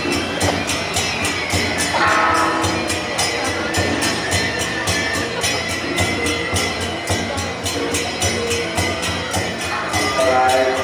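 Temple procession music: cymbals and drums beating a fast, steady rhythm, about five strikes a second, with held tones running under it.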